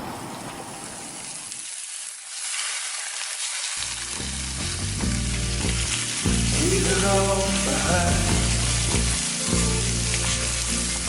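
Food sizzling in a hot pan, a steady hiss throughout, with background music coming in about four seconds in.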